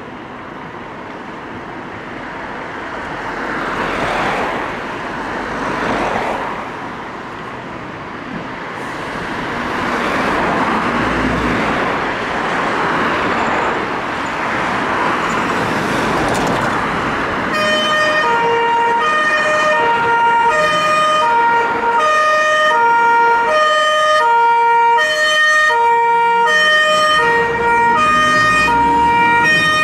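Scania fire engine's diesel engine running as it pulls away, swelling louder twice in the first few seconds. About halfway through, its two-tone siren starts, alternating between a low and a high note, each held for under a second.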